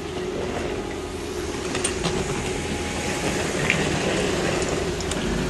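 A steady mechanical hum held on one tone over a low rumble, with a few faint ticks.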